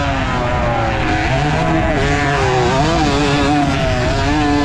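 Suzuki AX115 motorcycle engine working under racing throttle on a motocross track, its pitch rising and falling repeatedly as the rider rolls on and off the throttle, with a steady rush of wind over the camera.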